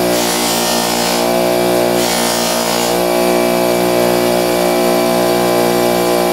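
2x72 belt grinder with a fine-grit belt running steadily with a steady hum, while a knife edge is drawn across the belt twice, each pass adding about a second of grinding hiss.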